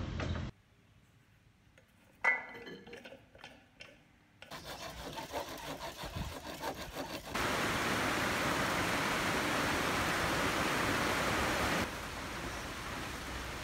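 Bamboo poles being cut with a hand saw, in irregular rasping strokes, followed by a steady hiss that turns quieter near the end, where the picture shows rain.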